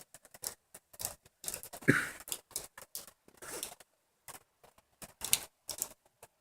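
Scattered light clicks and taps at an irregular pace, with short stretches of near silence between them and a brief low sound about two seconds in.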